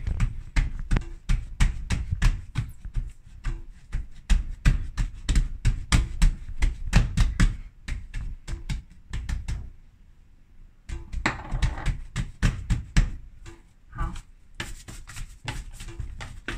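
Hands patting and pressing a large proofed bread dough on a countertop to knock the air out of it: a rapid run of soft thumps, several a second, with a brief pause a little past halfway.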